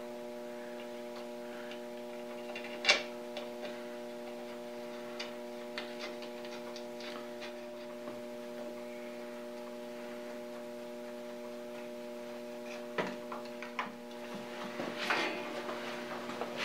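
Scattered light metal clicks and taps of parts and tools being handled while fitting a bracket onto a surface grinder, with one sharper knock about three seconds in and a cluster near the end, over a steady electrical hum.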